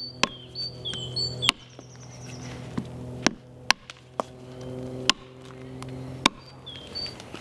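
Axe chopping a pheasant's legs and wings off against a log: a series of sharp, irregularly spaced strikes, about nine. Background music runs underneath.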